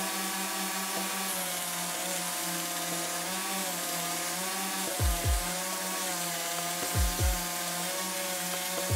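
Homemade belt grinder running on a small capacitor-run single-phase motor. There is a steady hum with a hiss from the abrasive belt as a metal part is ground to a rounded edge, and the hum wavers slightly in the middle. From about halfway in, low thumps come in pairs about every two seconds.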